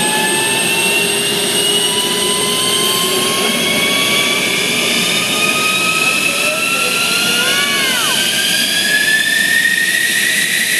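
F-16 fighter's jet engine spooling up on the ground during start-up: a steady rush of engine noise with a high whine rising slowly and steadily in pitch.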